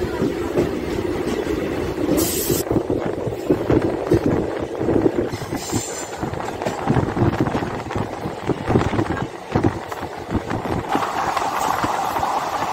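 Diesel-electric multiple unit (DEMU) passenger train rolling out of a station and gathering speed, heard from the open doorway: its wheels knock irregularly over the rail joints, with a short hiss about two seconds in and a brief high wheel squeal near six seconds. A steadier rushing noise builds near the end.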